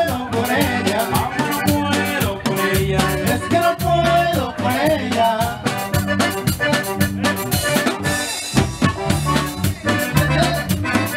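A live band plays dance music: a drum kit keeps a steady beat under guitar and a bouncing bass line.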